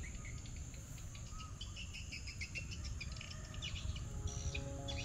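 Insect and bird chorus: a steady, high insect buzz with clusters of quick bird chirps, over a low rumble.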